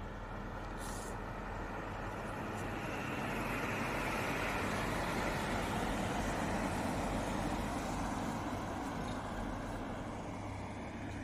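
A road vehicle passing in the fog: engine and tyre noise swells to a peak in the middle and fades again, over a steady low hum.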